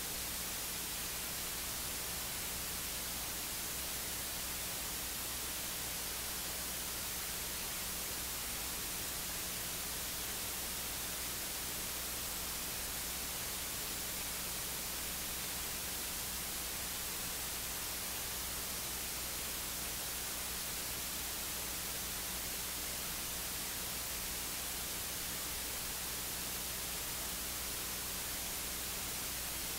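Steady electronic hiss with a low, steady hum and no voice at all: the recording's audio feed has dropped out, leaving only the noise of the recording chain.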